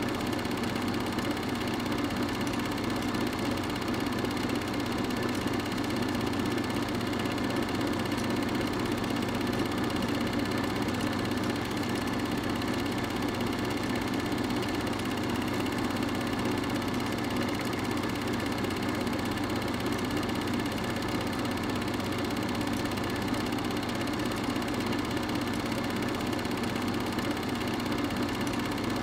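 Steady mechanical running noise with a constant hum, unchanging across the picture's cuts: an 8mm film projector running during the film's transfer.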